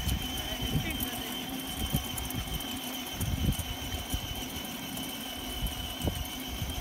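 Battery-powered ride-on toy Mercedes G-Class's electric drive motors and gearbox whirring steadily as it drives, with scattered low knocks from its plastic wheels rolling over the concrete.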